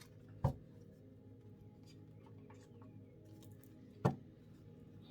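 Two sharp knocks on a tabletop about three and a half seconds apart, with faint light clicks between, as oracle or tarot cards are handled and set down.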